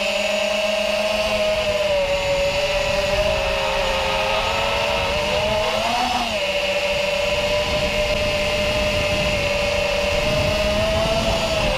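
FPV racing quadcopter's four brushless motors (DYS 2207 2300KV) spinning 5-inch tri-blade props, heard from the onboard camera: a steady buzzing whine that wavers slightly in pitch and rises briefly about six seconds in.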